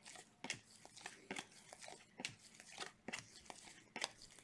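Faint, irregular swishes and clicks of glossy basketball trading cards sliding against one another as they are flipped off a stack by hands in nitrile gloves.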